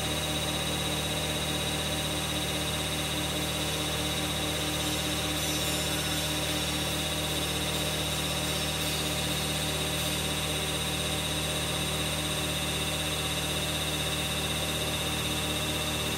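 A hydraulic power pack's electric motor and pump running with a steady, even hum.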